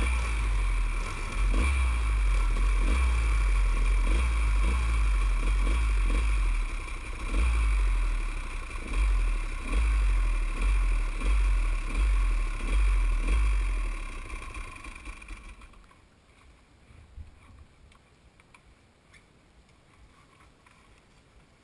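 Dirt bike engine running close to the microphone, its level rising and falling with the throttle, then cutting off about three-quarters of the way through.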